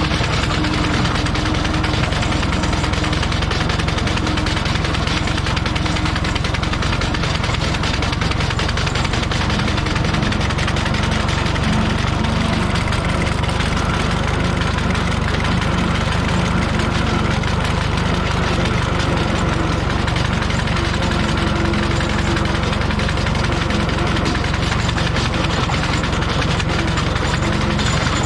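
Small tractor engine running steadily at low revs while driving an old Minneapolis Moline sickle bar mower through tall grass, with the mower's rapid mechanical clatter mixed in. The revs are kept low because the mower is old and its belt is worn.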